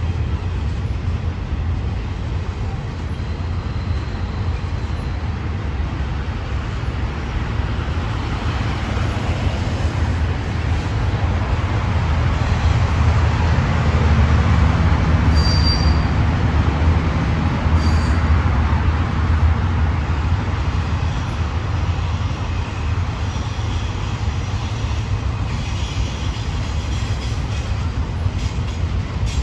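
Double-stack intermodal container cars rolling past on the rails in a steady low rumble, with a couple of short high squeaks about halfway through. Road traffic on the highway swells over the rumble around the middle as cars drive by.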